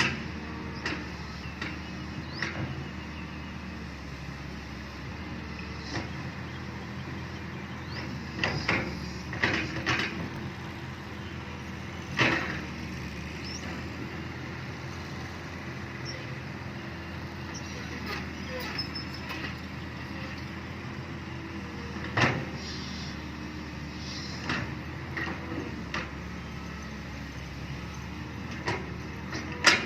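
Excavator's diesel engine running steadily under work, with scattered metallic clanks and knocks from the machine as it digs, and a quick clatter starting right at the end.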